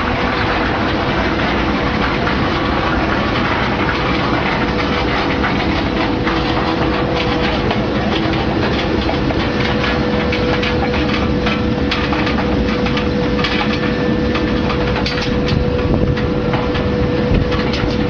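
Dates washing and drying line running: a steady machine din with a held hum, and a light rattling clatter from about halfway through.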